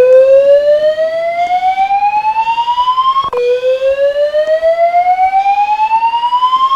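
Fire alarm voice evacuation system sounding its loud rising whoop evacuation tone: two slow upward sweeps, each about three and a half seconds long, the second starting just over halfway through.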